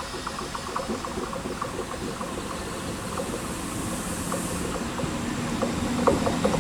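Regional diesel train of two SA137 railcars with a coach between them, its wheels clicking rhythmically over the rails at low speed, about four clicks a second, growing steadily louder as it nears.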